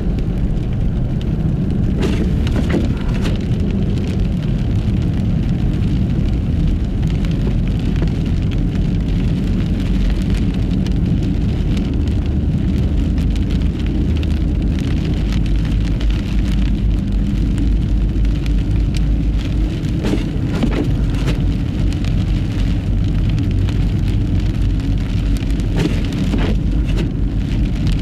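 Nissan Fuga Hybrid driving on studless tyres along a snowy road in a blizzard: a steady rumble of tyre and road noise with a patter like rain, from wind-driven snow. A few short knocks stand out here and there.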